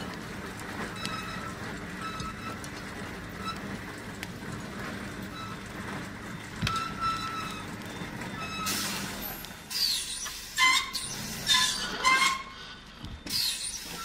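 Steady drone of a skyline cable yarder hauling logs, with a faint squeak from the carriage pulleys about once a second. In the last few seconds the squeaks turn into loud squeals that waver in pitch.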